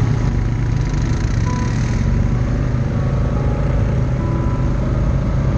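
Off-road vehicle engine running steadily under way, heard close up from the vehicle carrying the camera.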